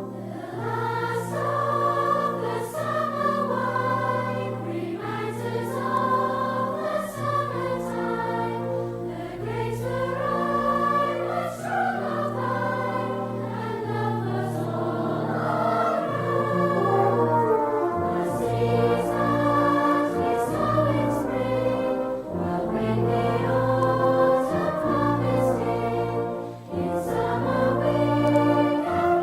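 Background music: a choir singing slow, sustained phrases with an orchestral accompaniment.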